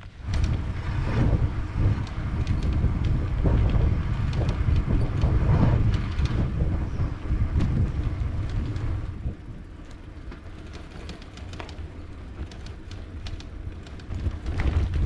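Wind rumbling on the microphone while riding a bicycle, with tyre noise and rattling from the loaded touring bike over rough tarmac and cobblestones. The rumble eases a little after about nine seconds and picks up again near the end.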